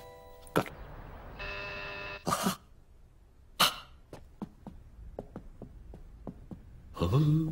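Cartoon sound effects: a short steady beeping tone and a few sharp clicks, then a run of light, quick ticks, about four a second, for a cartoon character tiptoeing down a staircase. A short vocal grunt starts near the end.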